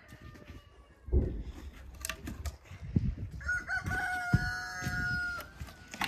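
A rooster crowing once, one long call of about two seconds starting a little past halfway. Heavy wooden thuds of sawn logs being lifted and set down come several times and are the loudest sounds.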